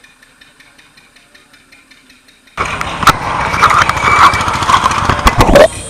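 Loud engine and road noise of a motor vehicle close by, cutting in suddenly about two and a half seconds in and stopping just before the end, with rattles and clicks through it.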